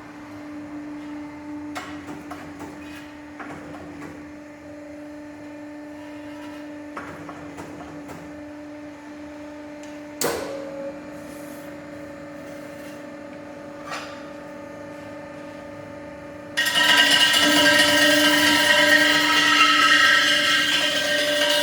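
Rim repair workshop machinery: a steady motor hum with a few sharp metallic knocks, one louder than the rest about halfway through. About 17 seconds in, a much louder power tool starts suddenly and runs steadily.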